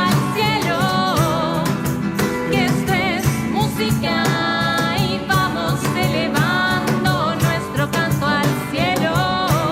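Folk song performed by a band: a singer's voice with vibrato over accompanying instruments and a steady run of percussion strikes.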